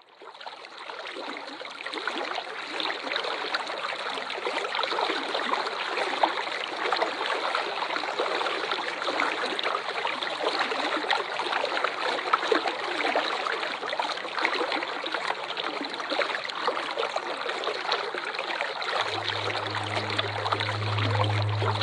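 Waterfall rushing as a steady hiss of falling water, fading in over the first couple of seconds. A low steady hum joins near the end.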